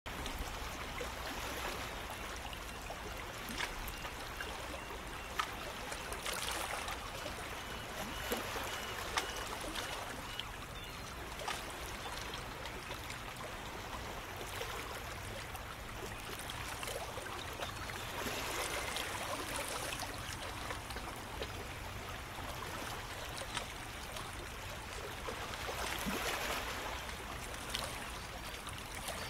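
Continuous ambience of shallow water lapping and trickling, swelling louder a few times, with small scattered splashy ticks.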